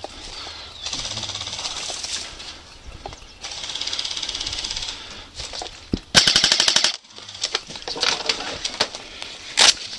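Airsoft guns firing full-auto bursts: two quieter bursts of a second or more in the first half, then a loud, close burst of rapid shots lasting under a second about six seconds in, followed by scattered single pops.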